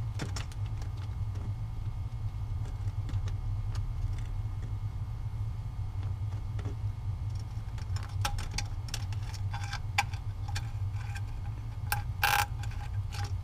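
A plastic zip tie being threaded and pulled tight around a hose: small irregular clicks and rustles, thickest from about eight seconds in, with a short scrape near the end, over a steady low hum.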